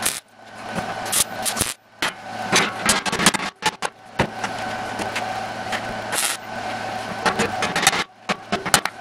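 MIG welder arc crackling and sizzling on sheet steel in short runs that stop and start several times, over the welding machine's steady hum.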